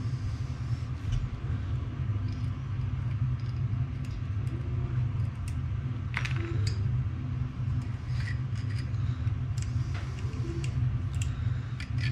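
Light, scattered clicks and taps of a 3D printer's toothed drive belt and gantry parts being handled as the belt is threaded around the motor pulley and rollers, over a steady low hum.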